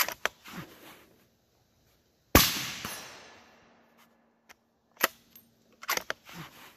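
A suppressed Remington 700 .308 bolt-action rifle fires one shot about two seconds in. The shot is the loudest sound, and its report fades over about a second and a half. Sharp metallic clicks and clacks come at the start and again between five and six and a half seconds in, typical of the bolt being worked between rounds.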